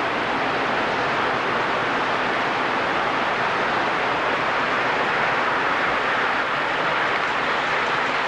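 O scale model trains rolling along the track: a steady, even running noise of wheels on rails with no distinct clicks or changes.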